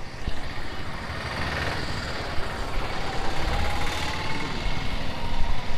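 Road traffic passing close by, with motorcycle and auto-rickshaw engines over a steady low rumble.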